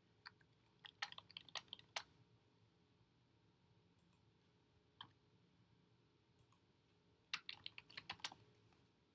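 Computer keyboard typing: a quick run of keystrokes about a second in, a few single taps, then another quick run near the end.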